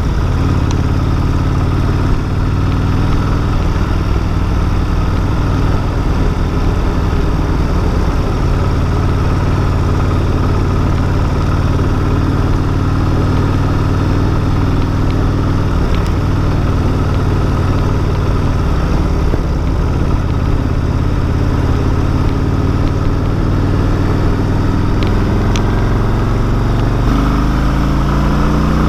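Cruiser motorcycle engine running steadily at road speed, heard from the rider's seat with wind rushing over the microphone. Over the last few seconds the engine note climbs as the bike accelerates.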